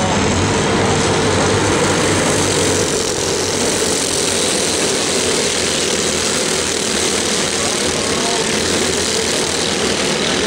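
A pack of racing go-kart engines running together at speed, a steady, loud drone with no breaks.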